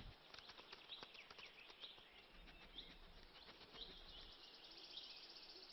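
Near silence: faint woodland ambience with soft, short, high chirps of a small bird recurring every half second or so over a low hiss.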